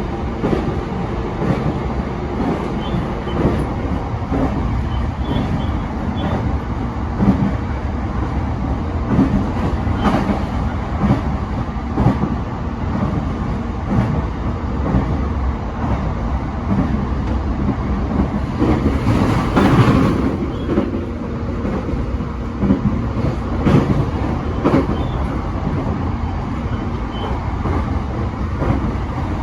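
Running sound of a JR East E233-7000 series electric commuter train at speed: a steady rumble of wheels on rail, broken by irregular knocks, with a brief louder swell about two-thirds of the way through.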